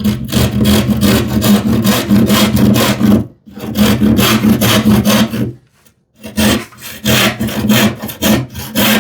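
Rip-pattern hand saw cutting across the grain of plywood in quick back-and-forth strokes. It comes in three spells broken by two short pauses, the first about three seconds in and the second near six seconds.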